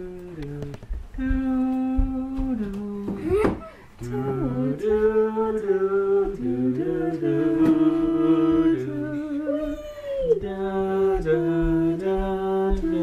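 A person humming a slow wordless tune in long held notes that step up and down in pitch, like a carol melody.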